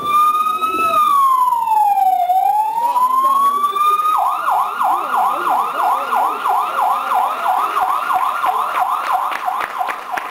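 Siren sound effect played loudly as part of a stage play: one slow wail that falls and rises again, then, about four seconds in, a switch to a fast yelp of about three cycles a second.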